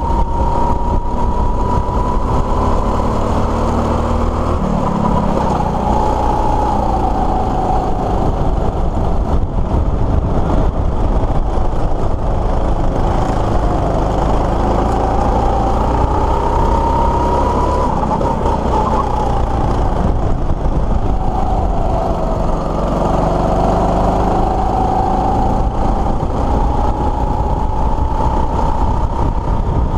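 Rental go-kart's small engine running hard, its pitch dipping and climbing again about three times as the kart eases off and picks up speed through the bends.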